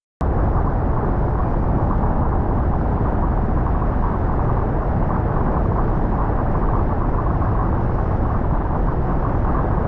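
Steady road noise of a car driving on wet pavement, a constant low rushing of tyres and engine heard from inside the car. It cuts in suddenly at the start.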